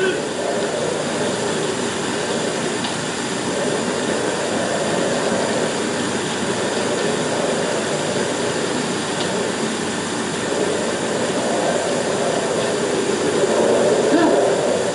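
Storm wind blowing in a steady rushing roar, swelling a little near the end, over the hiss of an old optical film soundtrack.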